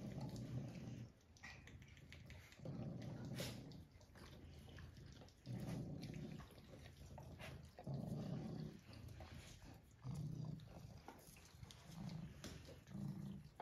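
Low, buzzy rumbling from a resting pet. It swells into louder stretches of about a second, roughly every two and a half seconds, in time with breathing, with quieter rumbling in between.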